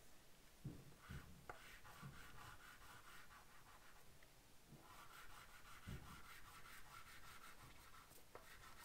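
Faint scratchy rubbing on drawing paper in two stretches of a few seconds each, with a few soft knocks.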